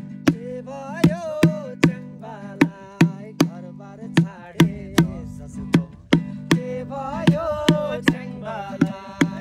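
A bucket beaten by hand as a drum, a steady beat of sharp slaps about two to three a second, over a strummed acoustic guitar, with a voice singing along in two phrases.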